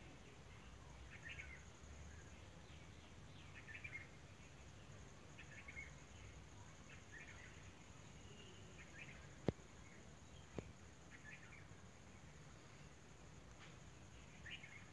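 Quiet outdoor ambience: faint bird chirps every second or two over a steady high insect drone. Two sharp clicks about a second apart, a little past the middle, are the loudest sounds.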